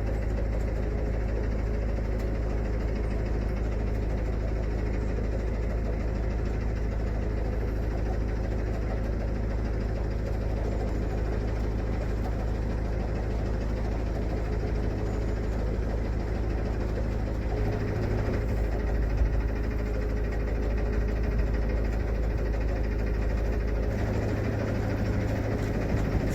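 Narrowboat's diesel engine running steadily as the boat cruises along the canal.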